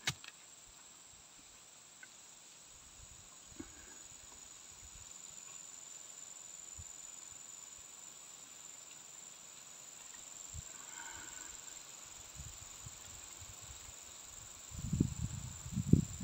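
Steady high-pitched insect drone, with a few low thumps near the end.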